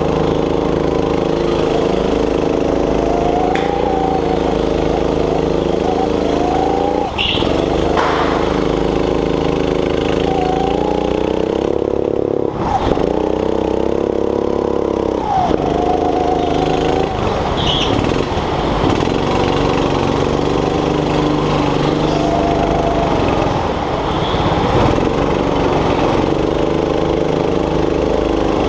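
Go-kart engine running hard around the lap, a steady pitched drone whose pitch drops briefly a few times as the throttle is lifted for corners, then climbs back under acceleration. A few short, high squeaks sound along the way.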